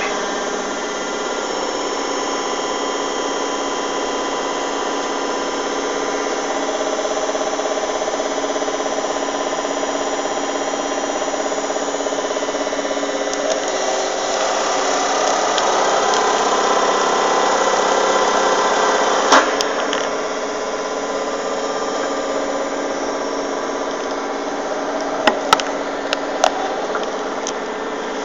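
40-ton hydraulic press's pump running steadily as the ram bears down on a safety boot. There is one sharp crack about two-thirds of the way in and a quick cluster of four near the end as the boot gives way under the load.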